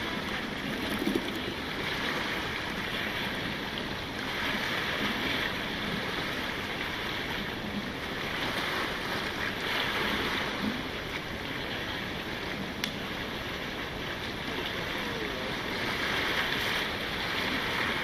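Small waves washing onto a stony shore: a steady rush of surf that swells into a louder wash three times, every five or six seconds.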